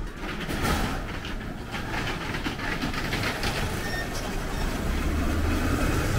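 Luggage wheels rolling and rattling over a hard floor, a quick run of irregular clicks and clatters. A low hum comes in about five seconds in.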